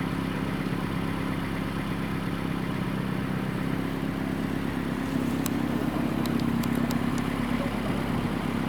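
A car engine idling steadily close by, with a few faint ticks in the second half.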